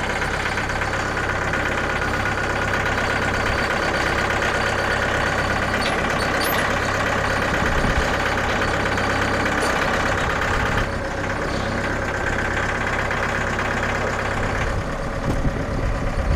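An engine running steadily, its low hum easing off near the end.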